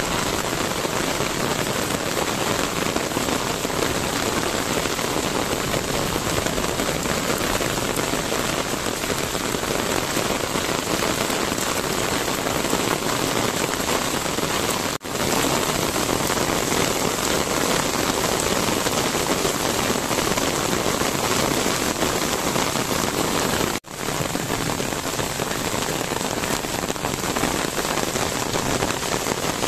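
Steady rain falling on wet paving and garden plants, an even hiss that cuts out briefly twice, about halfway and about two-thirds of the way through.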